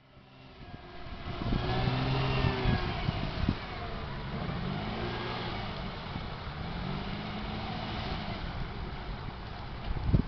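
Unimog truck engine revving under load as it drives through water, its pitch rising and falling several times. A few low thumps near the end.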